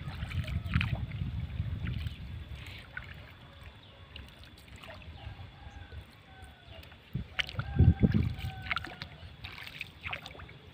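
Wooden canoe being paddled, the paddle dipping and pulling through the water with splashes and knocks. The loudest knocks come in a short cluster about eight seconds in.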